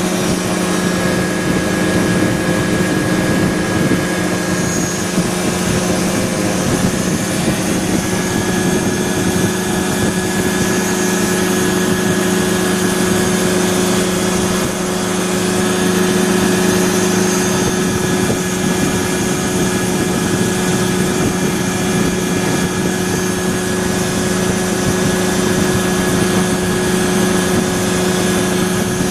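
ASAP Beaver SS ultralight's two-stroke engine and propeller running at a steady, unchanging pitch.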